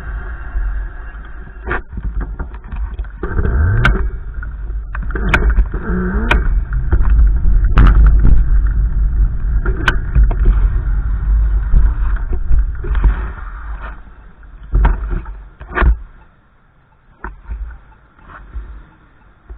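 Wind buffeting the microphone in a heavy, gusting low rumble with scattered clicks and knocks; it dies down about three-quarters of the way through, leaving only a few knocks.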